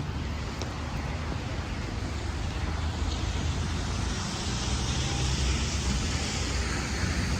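Road traffic on a wet street: a steady low rumble with tyre hiss that swells in the second half as a vehicle comes closer.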